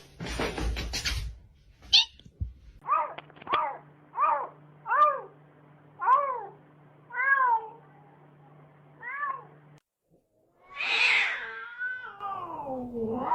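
A kitten meowing: about seven short, high meows, each rising and falling in pitch, then after a brief break a longer, drawn-out meow that slides down in pitch.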